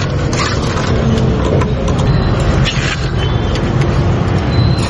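Steady rumble of road traffic, with scattered short clicks and knocks.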